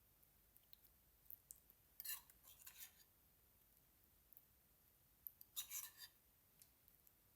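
A few short clusters of faint, crisp clicks and scrapes from food being handled with kitchen utensils, between stretches of near silence.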